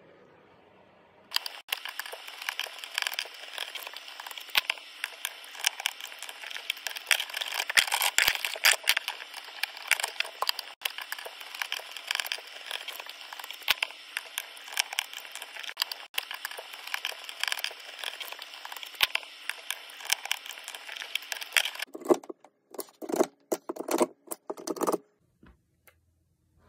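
Rapid, dense clicking and crackling of hands and tools working on the wiring of a four-gang wall socket box, over a faint steady hum. It stops abruptly about 22 seconds in, and a few scattered knocks follow.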